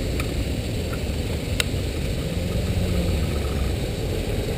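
Steady low rumble of city traffic as cars and a van drive past, with a single sharp click about a second and a half in.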